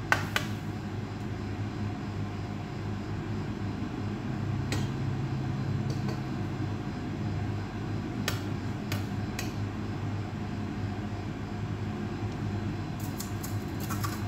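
A metal slotted skimmer and tongs clinking a few times against an aluminium serving tray as rice and chicken are spooned onto it, over a steady low mechanical hum.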